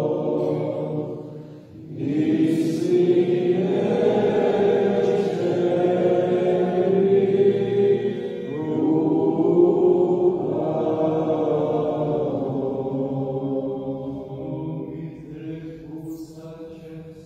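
Several voices singing a slow liturgical chant in long sustained phrases, echoing in a church. There is a short break before the second phrase and another new phrase about halfway through, and the singing fades away near the end.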